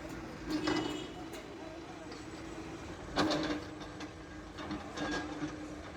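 Case 770 EX backhoe loader's diesel engine running steadily, with sharp metallic clatters about a second in, again near the middle (the loudest) and once more near the end, as the machine works soil.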